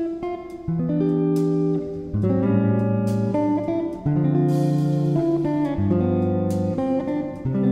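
Background music: a plucked-guitar instrumental, its notes changing every half second or so.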